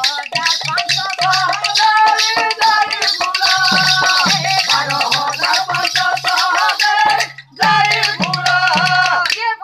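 Music: a melody in long held notes over a low, repeating drum-like beat and constant rattling, shaker-like percussion. It cuts out for a moment about three-quarters of the way through, then carries on.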